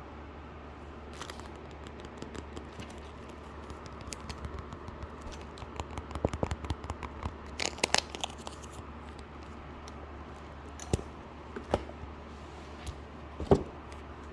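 Packaging being handled by hand: crinkling and tearing sounds, busiest in the middle, then a few sharp taps near the end, the last one the loudest. A steady low hum runs underneath.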